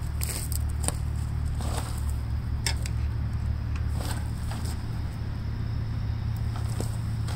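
A steady low hum, with scattered light clicks and taps as a screwdriver is worked against the metal of a Gravely tractor's engine during hand timing.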